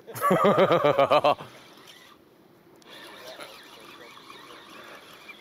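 A man's drawn-out, excited exclamation, then a quiet, steady rasping from a fishing reel being wound in on a rod held up after striking at a bite.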